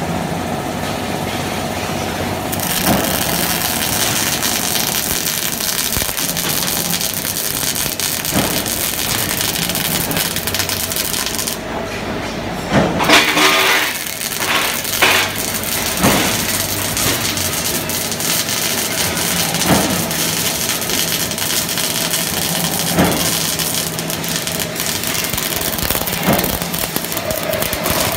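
Robotic MIG welding arc on carbon steel: a steady hiss studded with scattered sharp pops. About halfway through, the hiss thins out briefly, then comes back louder with a cluster of pops.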